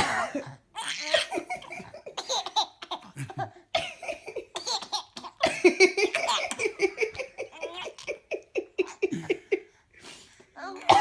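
Twin babies laughing hard in repeated giggles and belly laughs, set off by their mother's coughing, with a sharp cough-like burst right at the start. In the middle the laughter runs on in a long string of even pulses, about four or five a second.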